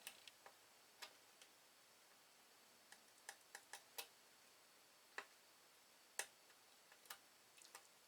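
Faint, irregularly spaced metallic clicks, about a dozen, as tweezers nudge the pins of a desoldered IC socket to check whether each has broken free of its hole.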